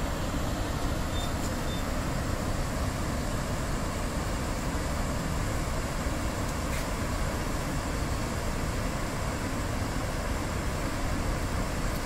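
Floodwater of the swollen Palar river rushing steadily, a constant, even roar with no let-up.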